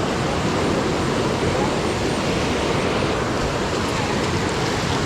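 Water of a small waterfall rushing steadily, an even hiss with no tone or rhythm.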